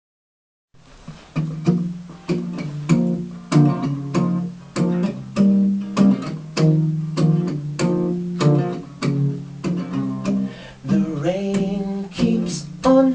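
Acoustic guitar strumming a song intro in a steady rhythm, about one stroke every 0.6 seconds. A singing voice comes in near the end.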